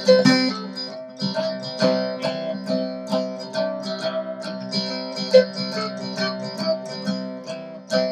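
Cigar box guitar playing an instrumental break of an old-time tune: quick picked notes, several a second, over strings that keep ringing underneath.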